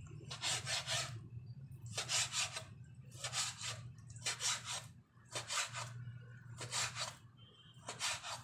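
Ceramic knife slicing raw chicken on a plastic cutting board: a short rasping stroke about once a second, seven or so in all.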